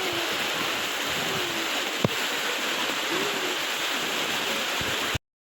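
Waterfall rushing steadily, with a single sharp click about two seconds in; the sound cuts off abruptly near the end.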